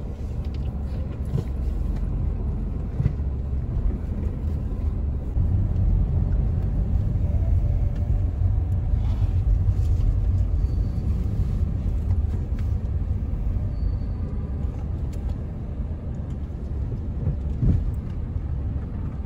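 A car on the move, with a steady low rumble.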